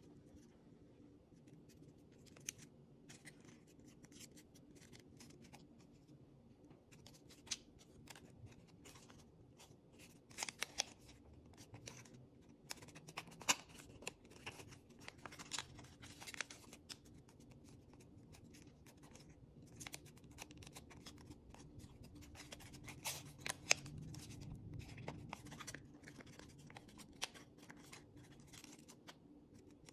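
A sheet of origami paper being folded and creased by hand: irregular faint crinkles and rustles with occasional sharper crisp snaps as folds are pressed, over a low steady hum.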